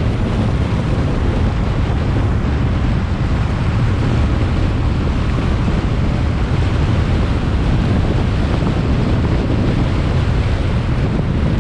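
Strong wind buffeting the microphone: a loud, steady low rumble with no break.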